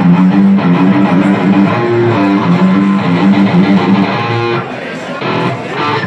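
Les Paul-style electric guitar played loud through an amp, a riff of single low notes during a sound check, dropping back briefly about five seconds in.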